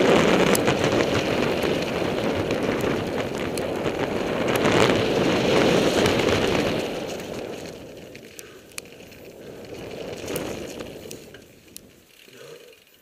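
Mountain bike riding fast down a rough gravel trail, heard from a helmet-mounted camera: a steady rush of tyre noise, rattle and air with scattered sharp clicks. The noise fades after about seven seconds as the bike slows, leaving a few isolated clicks.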